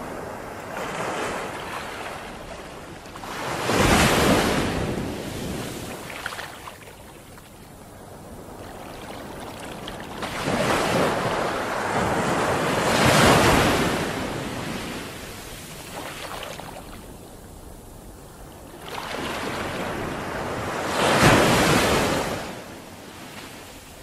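Small waves washing in over a sandy beach and drawing back. Three louder surges of surf come roughly eight seconds apart, each swelling and fading away.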